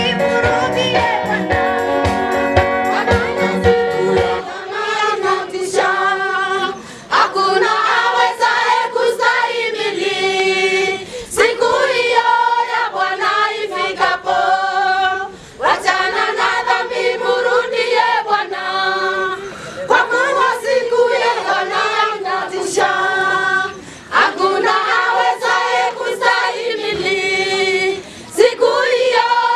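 Women's choir singing a gospel song in phrases with short breaks between them. A backing with a low beat drops out about four seconds in, leaving the voices unaccompanied.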